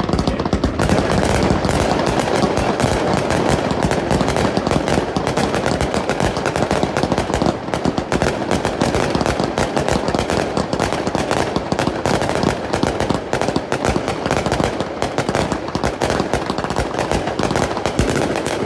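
1.4G consumer firework cake firing a fast, unbroken barrage of shots and aerial bursts.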